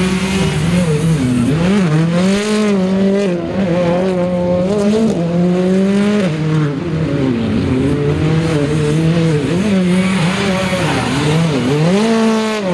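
Hyundai i20 R5 rally car's turbocharged four-cylinder engine revving hard, its pitch climbing and dropping again and again as the driver lifts off and accelerates through tight corners.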